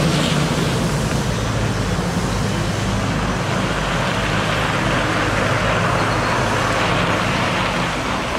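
A Freightliner M2 water truck's Cummins ISC diesel engine running as the truck drives slowly away in low gear. A steady hiss of water spray and tyres on wet gravel sits over the engine rumble.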